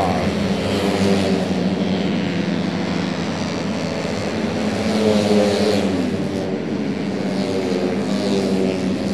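Engines of tuned 131cc racing automatic scooters running hard as several ride past, a steady buzzing drone whose pitch shifts up and down about halfway through and again near the end.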